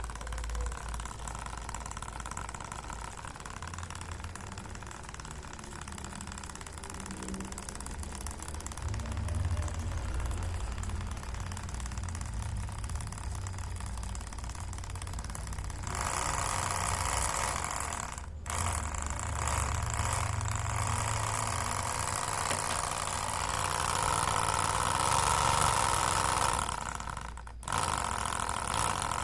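Homemade mini single-cylinder model engine, driven by a small DC motor, running with a steady engine-like hum and rattle. It gets louder about halfway through and cuts out briefly twice.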